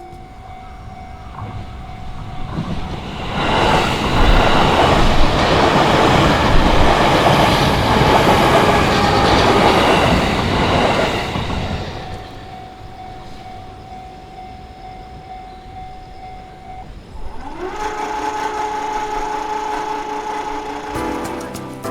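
Japanese level-crossing warning bell ringing as an electric train runs through the crossing. The train's wheel and motor noise swells in about three seconds in and dies away after about eleven seconds, and the bell's steady tone goes on after the train has passed.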